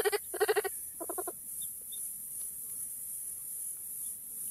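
Vervet monkey calls: three short bleating calls in quick succession in the first second and a half, the last one fainter, followed by a faint steady high hiss.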